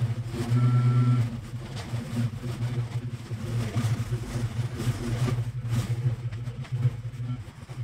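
Stand-on mower's engine running steadily at high throttle while the deck cuts through tall, overgrown grass, the drone rising and dipping a little under the load.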